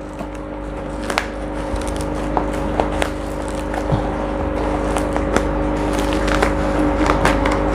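Plastic packaging crinkling and crackling as a parcel wrapped in black plastic is torn open by hand, with many small clicks. A steady hum runs underneath.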